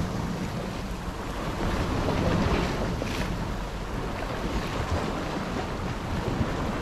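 Sea waves washing and breaking against rocks along the shore, with wind buffeting the microphone.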